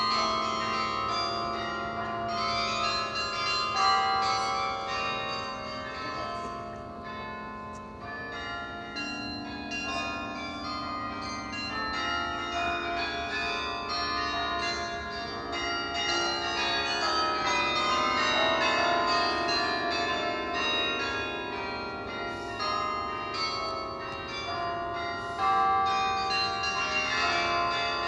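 Carillon playing a melody: many tuned bronze bells struck one after another, their notes ringing on and overlapping.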